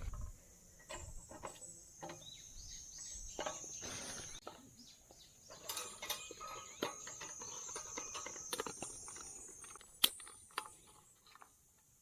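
Insects trilling steadily at a high pitch in woodland, over scattered clicks, knocks and rustling of gear being handled, with one sharp click about ten seconds in.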